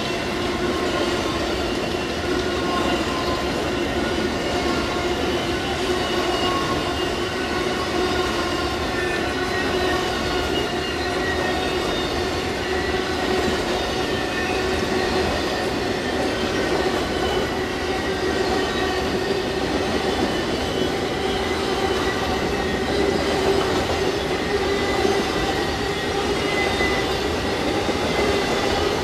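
Amtrak Auto Train's enclosed autorack cars rolling past at speed: steady rumble of steel wheels on the rails, with a continuous high metallic squeal of wheel tones riding over it.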